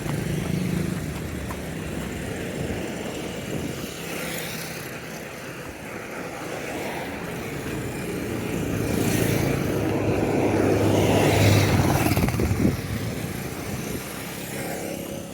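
Road traffic: a motor vehicle's engine hum rises as it passes close, loudest about ten to twelve seconds in, then fades away.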